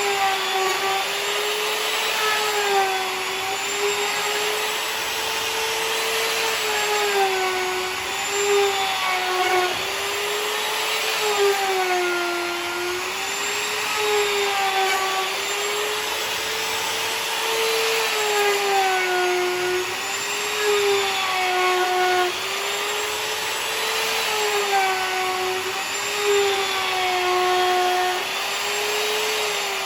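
Electric router milling a walnut table top flat: a high, steady whine whose pitch dips and recovers every two to three seconds as the bit takes load on each pass across the wood.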